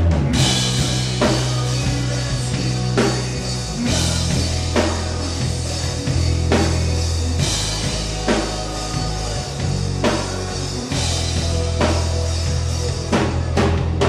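Rock band playing: a drum kit keeping a steady beat under electric guitar and a heavy bass line.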